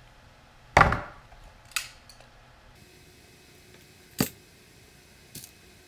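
Four sharp clicks and snaps of hand tools working on a heavy power lead and its connector, the loudest about a second in.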